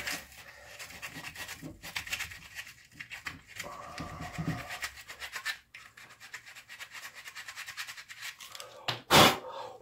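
Hand sanding of carved wood with a small piece of hook-and-loop sandpaper: quick, irregular scratchy rubbing strokes as the lip of the carved face is worked. A short, louder handling knock comes near the end.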